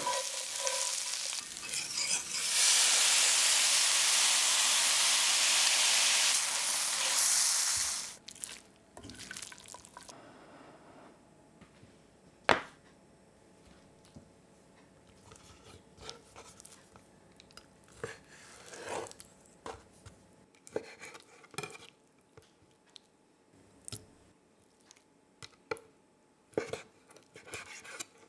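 Chicken, peanuts and chilies frying in hot oil in a cast-iron skillet while a spatula stirs, a loud steady sizzle that cuts off suddenly about eight seconds in. After that come quiet handling sounds of raw chicken breast on a metal tray with one sharp click, and near the end a few knife strokes on a wooden chopping board.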